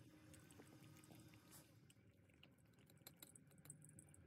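Faint wet smacking and clicking of a cat eating wet cat food from a bowl, in scattered irregular ticks over a low room hum.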